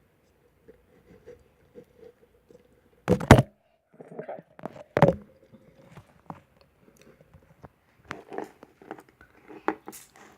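Glue-and-borax slime being mixed in a container: small sticky squelches and clicks, with two loud knocks about three and five seconds in.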